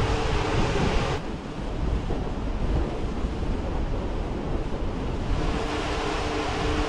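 Wind rumbling and buffeting on an outdoor microphone, with a steady low hum under it. About a second in the sound changes abruptly to a duller rumble without the hum, and the brighter noise and hum come back near the end.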